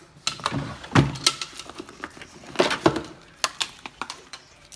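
A wooden drawer is pulled open and dog leashes and harnesses are rummaged through. Metal clips clink and rattle in several short flurries, with a thump about a second in.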